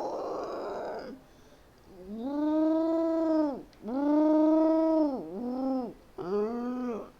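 Dinosaur sound-effect calls. A rough, noisy call in the first second is followed by four pitched calls, each rising and then falling in pitch: two long ones of about a second and a half, then two shorter ones near the end.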